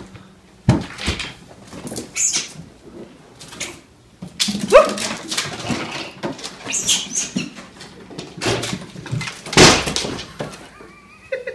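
Thumps and scrambling of a house cat running and leaping around a room, mixed with short animal cries. One cry rises and falls about halfway through, and a loud rough burst of noise comes near the end.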